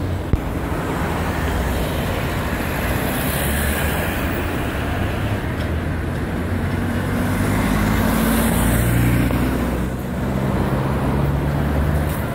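Steady city street traffic: cars passing with tyre hiss that swells twice, and a heavier engine hum growing in the second half. A single sharp click comes just after the start.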